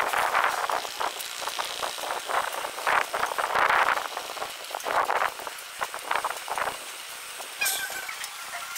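Spices tumbling inside the slowly rotating glass tubes of a solar spice roaster's drum: an uneven rustling rattle that swells and fades about every half second to second, with small clicks. A brief high squeak sounds near the end.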